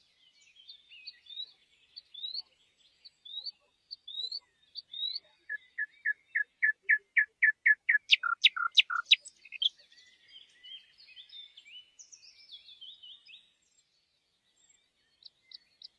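Songbird singing in the wild: a run of short rising whistled notes, then a quick series of lower repeated notes about five seconds in, several loud sharp notes around eight seconds in, and then a jumble of twittering with a falling run of notes.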